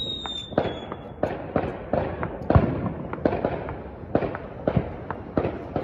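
Neighbourhood New Year's fireworks and firecrackers going off all around at a distance, irregular bangs about two a second. A falling whistle fades out about a second in.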